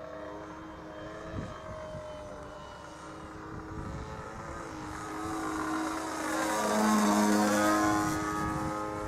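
Model aerobatic plane's 35cc petrol engine and propeller running steadily in flight, growing louder as it passes close about six seconds in, then easing off slightly near the end.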